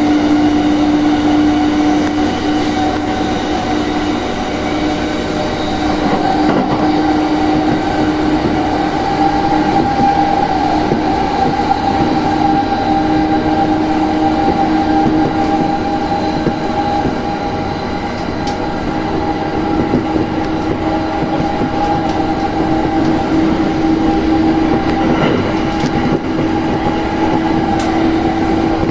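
Inside a JR Sobu Line Rapid E217-series electric commuter train running at speed: a steady hum at two pitches over the continuous rumble of wheels on rail, with a few faint clicks.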